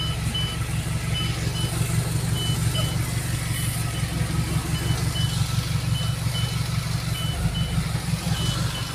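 Motor vehicle engine running steadily, heard from inside the cab while it drives. A faint high beep repeats about twice a second, coming and going in short pairs.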